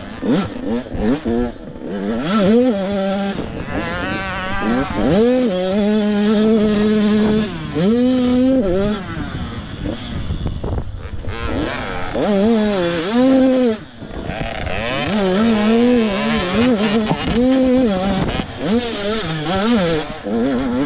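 Motocross dirt bike engines revving as they race, pitch rising and falling again and again as the riders work the throttle and shift, with several engines overlapping at times and a short lull about two-thirds of the way through.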